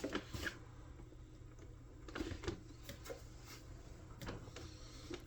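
A few faint, scattered small clicks and taps over a low steady hum.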